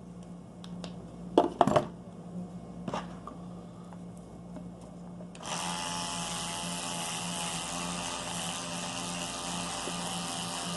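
A few knocks, then about five seconds in an electric toothbrush switches on and runs with a steady buzz, polishing toothpaste across a scratched watch lens.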